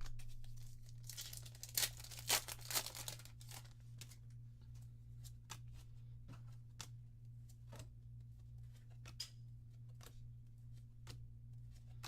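A foil trading-card booster pack being torn open and crinkled for a couple of seconds, followed by a string of light clicks and taps as the cards are handled.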